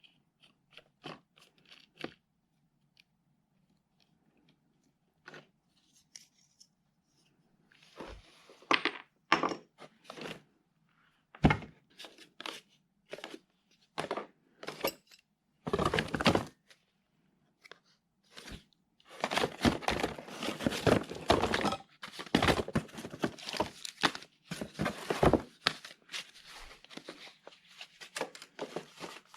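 Small tool accessories and their packaging being handled: irregular clicks and knocks with crinkling and rustling, sparse at first, then a dense stretch of rustling and clatter in the second half.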